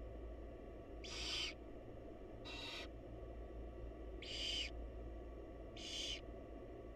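Barn owls giving short, harsh hissing calls, four in all, spaced about one and a half seconds apart, over a steady low hum.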